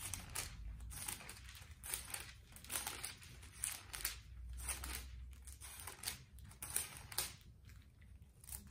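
Thin Bible pages being turned one after another: a string of short papery rustles and flips, several a second.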